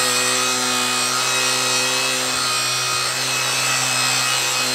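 Ryobi 18V brushless cordless angle grinder, fitted with a foam polishing pad, running at steady speed with a constant whine while the pad rubs against the boat's hull to polish it.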